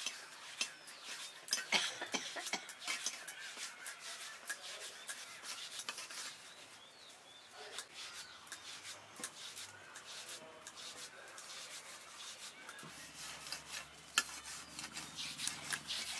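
Fingers rolling small pieces of rice-flour dough into chushi pitha: soft rubbing with irregular light clicks and taps. A faint low hum comes in near the end.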